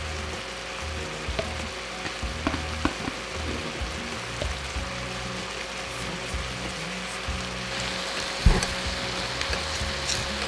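Background music over a steady hiss, with a few light clicks of kitchen utensils against a ceramic bowl and one sharper knock about eight and a half seconds in.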